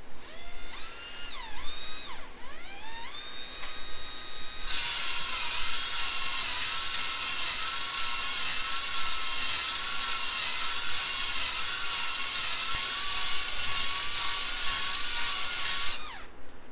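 Cordless drill spinning a 320-grit silicon carbide flex ball hone in a Honda GL650 engine's cylinder bore, honing a fresh surface for new piston rings. The drill's whine rises and falls in pitch a few times, then runs steady with a scrubbing hiss from the hone for about eleven seconds, winding down just before the end.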